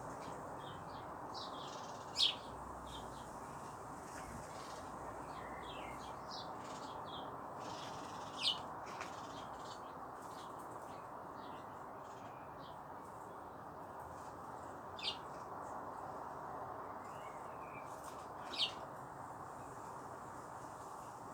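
Birds chirping in short, high calls, four of them louder than the rest and spaced several seconds apart, over a steady background hiss.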